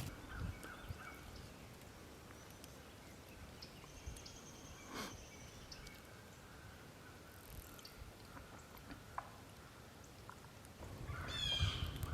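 Wild turkey gobbling near the end, a quick run of falling notes, over a quiet outdoor background with a few faint thin bird calls.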